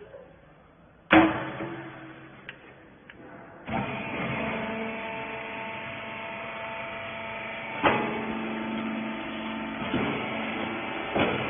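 A sharp bang about a second in, then the rags baler's hydraulic power unit starts up about four seconds in and runs with a steady hum, with a few knocks over it.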